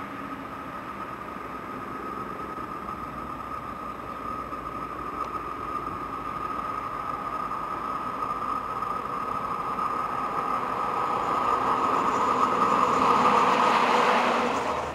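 Electric locomotive approaching, its running noise growing steadily louder over the whole stretch with a steady high whine. The sound is loudest just before the end, then cuts off abruptly.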